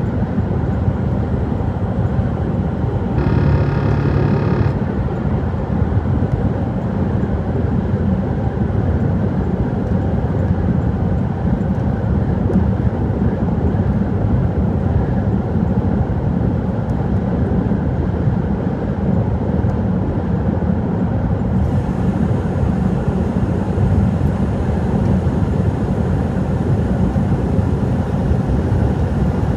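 Truck driving on the road, a steady low rumble. A horn sounds once, for about a second and a half, a little over three seconds in.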